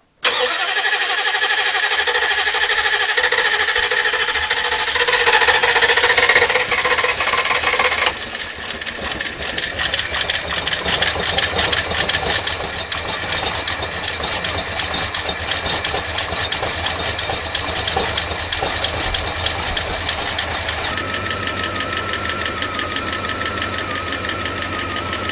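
Freshly rebuilt 318 V8 of a 1989 Dodge D200 firing up and running, revved up for a few seconds before dropping back to a steady fast idle. A rapid ticking runs through it from a noisy hydraulic lifter, which the owner expects to go away soon.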